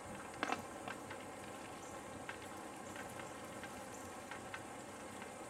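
Footsteps on a sandy, needle-strewn trail: faint crackling ticks roughly every half second, slightly louder about half a second in, over a steady outdoor hiss.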